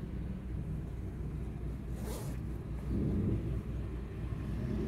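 Low, steady rumble of a car heard from inside its cabin, swelling slightly about three seconds in. A brief rustle about two seconds in.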